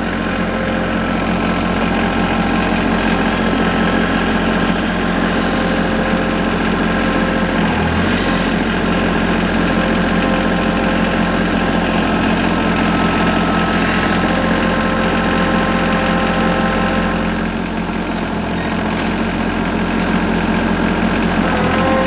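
TYM T25 compact tractor's three-cylinder diesel engine running at a steady speed while it works the front loader and grapple.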